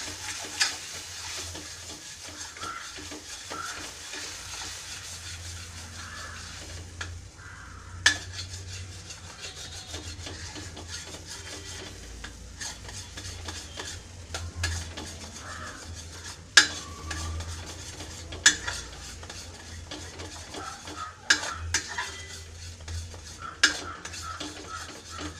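A steel spoon stirring and scraping a thick mashed-banana paste as it sautés in ghee in a brass pan, with a light sizzle and a steady low hum underneath. The spoon knocks sharply against the pan now and then, about six times.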